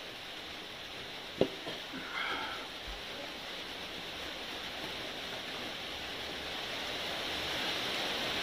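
Fingers squishing and mixing rice and curry on a plate by hand, with one sharp click about a second and a half in, over a steady hiss that swells slightly toward the end.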